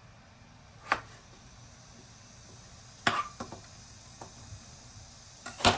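Kitchen knife knocking on a cutting board in a few separate strikes: one about a second in, a cluster of smaller knocks a little after three seconds, and the loudest near the end.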